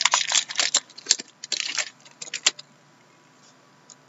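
A stack of trading cards being handled, the cards slid and flicked against one another in a quick run of crisp clicks and rustles. The run stops a little past halfway.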